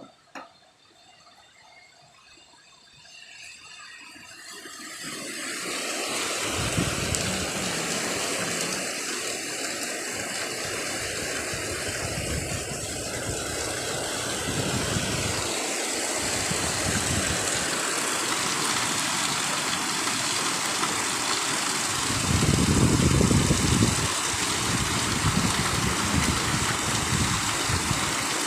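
Heavy rain and strong wind in a thunderstorm. The downpour swells over the first several seconds, then stays steady. Gusts of wind buffet the microphone again and again, the strongest about three quarters of the way through.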